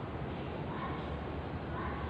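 Steady room noise with a low hum and no clear single event.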